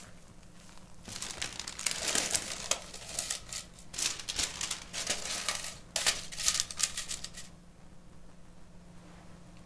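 Crinkling and rustling with sharp crackles, starting about a second in and stopping about seven and a half seconds in.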